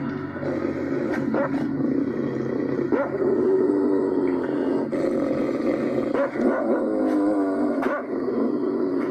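German Shepherd dog growling low and steadily, with a few sharp knocks. It is heard through a television's speaker.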